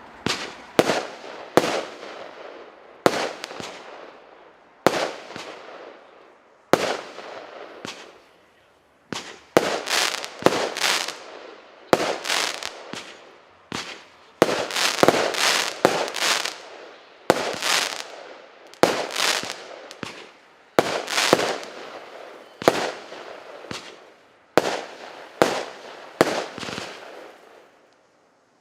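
A 25-shot, 1-inch firework cake firing shot after shot: sharp bursts about every second or two, some in quick pairs. Each burst is followed by a fading tail.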